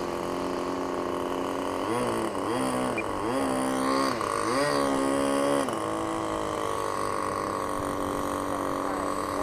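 Electric RC plane's motor and propeller whining steadily, the pitch rising and falling several times between about two and six seconds in as the throttle is worked on a landing approach in gusty wind, then holding steady.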